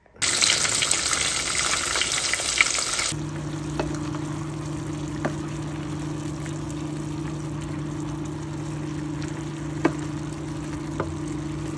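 Food frying in a pan: a loud sizzle for about three seconds, then a softer sizzle under a steady low hum as chop suey vegetables are stirred with a wooden spatula, with a few light clicks of the spatula on the pan.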